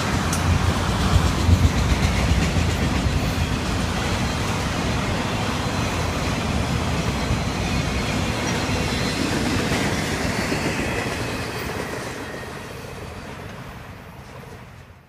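Freight train of autorack cars rolling past: a steady rumble and clatter of steel wheels on rail, fading over the last few seconds as the end of the train goes by.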